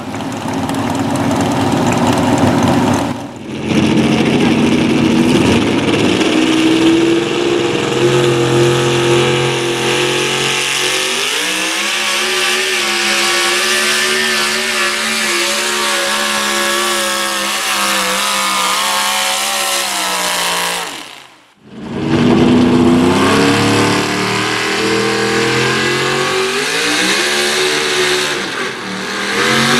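Modified 4x4 pulling trucks' engines running at high revs under full load while dragging a weight-transfer sled. The pitch climbs in steps, holds high, then falls away toward the end of a pull; after a sudden break another truck's engine comes in, climbing again.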